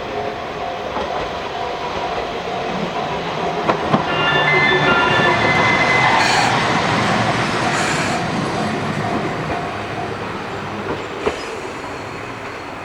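A train passing close by, its wheels clattering over the rails. It grows louder, is loudest a few seconds in, then slowly fades away.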